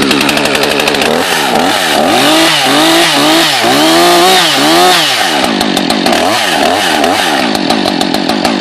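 Husqvarna 562 XP two-stroke chainsaw engine running after starting, revved up and down about five times in quick succession, then settling back to steadier running with a couple of smaller revs.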